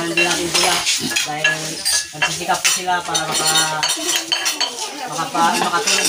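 Metal cutlery and dishes clinking and scraping, many short clicks in quick succession, over the chatter of voices.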